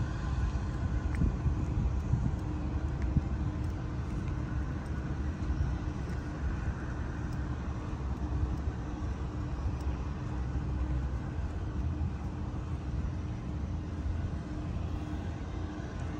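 Steady low mechanical rumble with a constant hum running through it.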